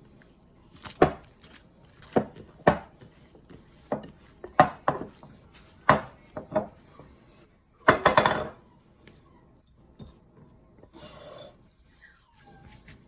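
Dough being kneaded by hand with the knuckles: a string of irregular knocks and thumps against the bowl and work surface, then a longer, louder burst about eight seconds in.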